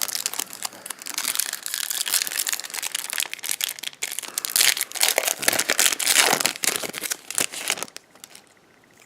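Baseball card pack wrapper crinkling and crackling as it is torn open and handled, for about eight seconds, stopping near the end.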